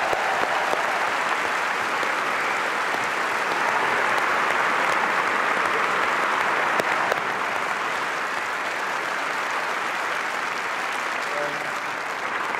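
A large audience applauding steadily, the applause easing a little in the second half.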